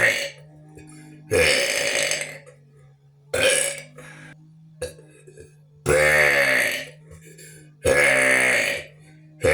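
A person burping on purpose, a series of loud, long, pitched burps about every two seconds, one of them short. A steady low hum sounds between the burps.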